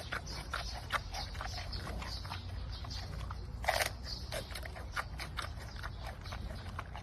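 Irregular small crunching clicks, several a second, over a steady low hum, with one louder crunch just under four seconds in.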